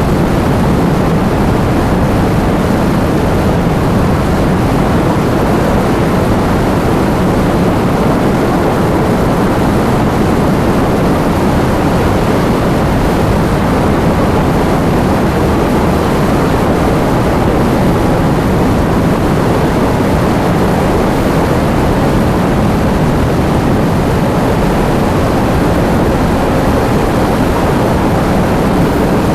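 Heavy rain with wind: a loud, steady rushing noise with a deep rumble underneath.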